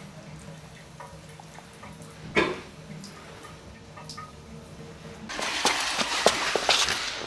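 Water splashing, with one short splash about two seconds in and then continuous splashing and sloshing, much louder, over the last two seconds.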